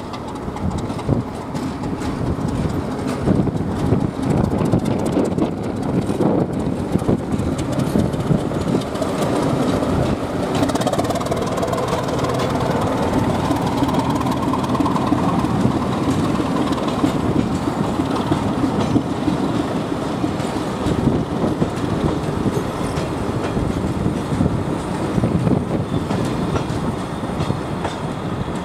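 A diesel-hauled passenger train passing over a level crossing. The locomotive comes first, then a string of passenger coaches clatter over the rails with a steady, continuous rumble.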